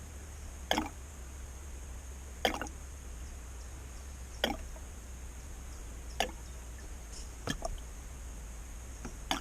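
Faint drips of power steering fluid falling, six separate sharp drops, one every couple of seconds, over a low steady hum.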